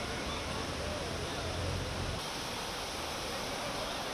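Fast-flowing muddy floodwater rushing, a steady even wash of water noise, with faint voices in the background. A low rumble under it drops out about two seconds in.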